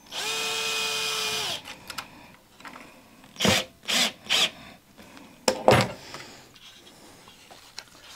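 Cordless drill-driver driving a screw into a plastic part. It runs steadily for about a second and a half, then winds down. A few loud knocks follow about three and a half to six seconds in.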